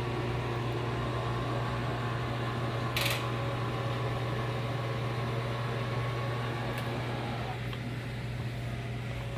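Motor of a boat's push-button power tower running steadily as the tower raises, stopping near the end. A low steady hum lies under it, and there is a single sharp click about three seconds in.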